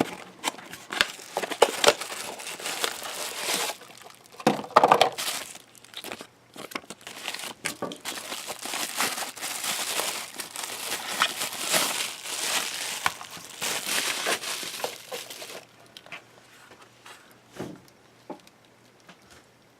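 Packaging being crinkled and pulled open by hand while a solar charge controller is unpacked: dense, irregular crinkling and rustling that stops about fifteen seconds in. A few light handling knocks follow.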